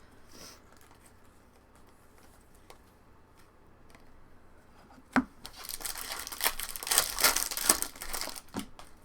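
Trading card pack wrapper being torn open and crinkled: a sharp tap about five seconds in, then about three seconds of crinkling and tearing. Only faint handling sounds come before it.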